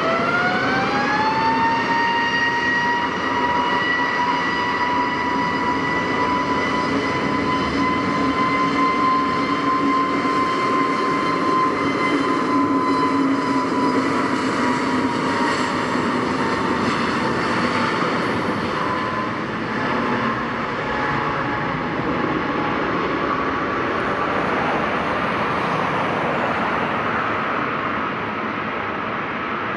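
Jet airliner engines spooling up, with a rising whine over a loud rush in the first two seconds. They then run steadily at high power, and the whine sinks slowly in the second half.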